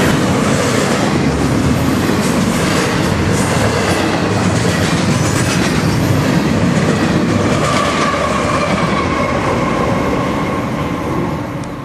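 Double-stack container freight train passing close by, its wheels rumbling and clacking over the rails, with a Union Pacific locomotive pushing at the rear going past. A high, slowly falling whine joins about two-thirds of the way through, and the noise falls off sharply near the end as the train moves away.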